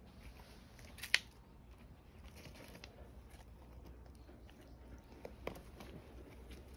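Faint crunching and light clicks of steps on gravel and dry leaves, with one sharp click about a second in and a smaller knock about five and a half seconds in.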